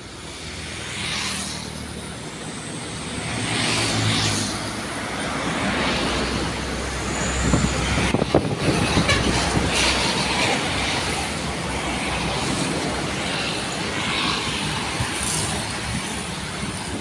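Heavy road vehicle's engine running close by amid traffic noise, growing louder over the first few seconds, with a few sharp knocks about eight seconds in.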